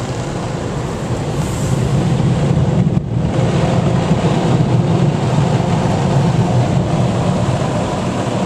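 Steady low rumbling noise from a car in motion, heard from inside the cabin, with a brief drop-out about three seconds in.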